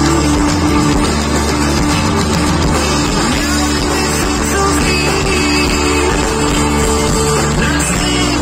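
A live band playing a rock song through a PA system, with an acoustic guitar and keyboards.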